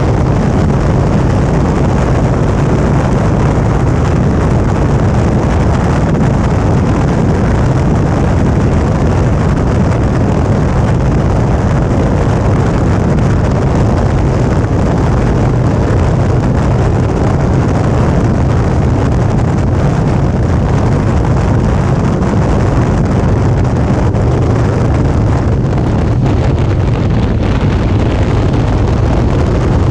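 Suzuki V-Strom 650's V-twin engine running steadily at cruising speed, with wind rushing over the action camera's microphone.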